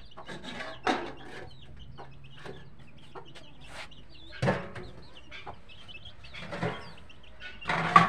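Chickens clucking: several short, loud calls a second or two apart, the loudest near the end, with thin high chirps in between.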